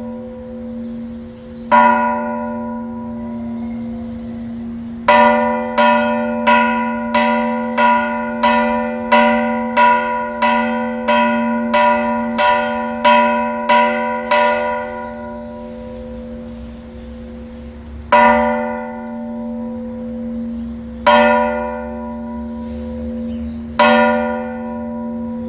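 A single church bell struck over and over, each stroke left to ring on. One stroke, then a fast run of about twenty strokes at roughly two a second, then single strokes about three seconds apart.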